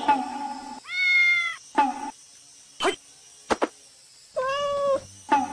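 A domestic cat meowing twice: one drawn-out meow about a second in and a shorter one about four and a half seconds in. Brief snatches of a repeating tone and two sharp clicks fall between them.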